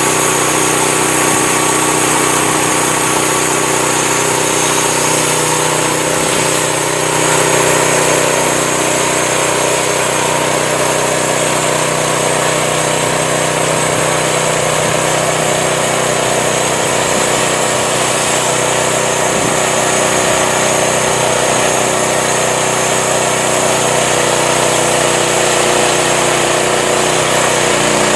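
Engine of a home-built band sawmill running steadily, with a brief swell in loudness about seven seconds in.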